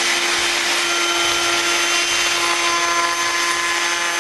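Router table running steadily, its pattern bit trimming a maple spoon blank along a taped-on hardboard template: a constant high hum with a hiss over it.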